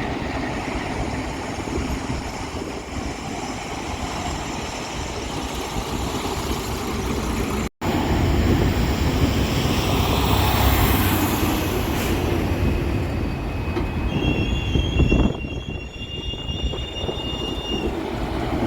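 Train rolling past with a steady rumble of wheels on rail, louder after a brief break about eight seconds in. Near the end, high steady wheel squeal sounds for several seconds.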